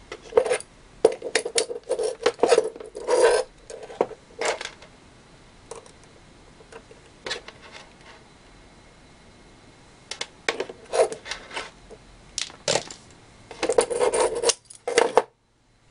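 Clicks, clinks and knocks of small electrical parts and a multimeter being handled and set down on a wooden tabletop, in irregular flurries: several in the first few seconds, one around the middle, and a busy run near the end before the sound cuts off.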